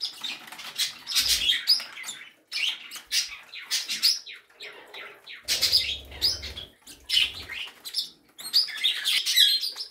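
A room of small pet birds (budgies, parakeets and other small parrots and finches) chirping and chattering, with many short overlapping calls.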